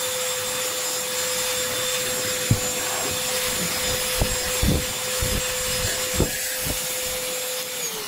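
Ferrex 20-volt cordless handheld vacuum cleaner running steadily with a constant motor whine and airflow hiss, its nozzle knocking against the car floor mat a few times. Near the end it is switched off and the motor winds down.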